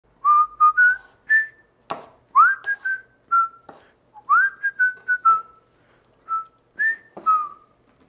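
A man whistling a tune in short held notes, many of them scooping up into pitch. Several sharp knife chops on a wooden cutting board fall between the notes, the loudest about two seconds in.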